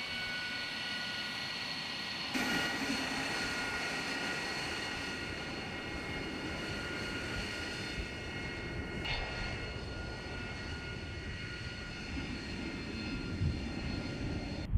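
AV-8B Harrier II's Rolls-Royce Pegasus turbofan running on the ground: a steady high whine of several tones over a continuous jet rush. The noise steps up about two seconds in, and a deeper rumble builds near the end as the jet taxis.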